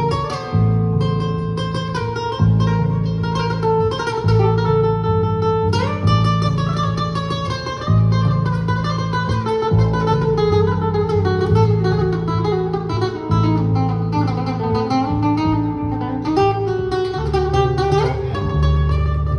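Live acoustic guitar and upright double bass playing together: a run of picked guitar notes over low bass notes.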